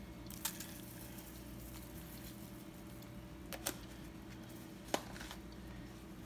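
Seasoning container handled and shaken over a pot: a few short, sharp clicks and taps, the loudest about five seconds in, over a faint steady hum.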